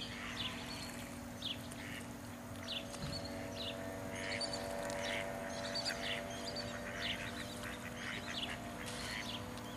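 Ducks on a pond calling with short, scattered quacks over a steady low hum.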